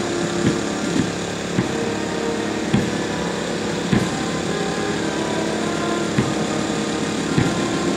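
A steady engine hum with irregular low knocks.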